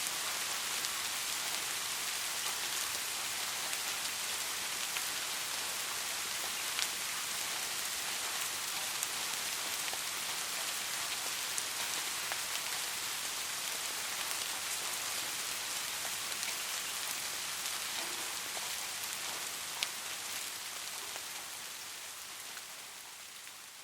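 Soft rain falling steadily: a continuous high hiss with occasional sharper drop ticks. It fades out over the last few seconds.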